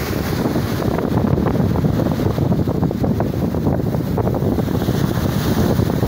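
Sea waves breaking and foam washing up a sandy beach, heavily overlaid by wind buffeting the microphone as a steady low rumble with crackles.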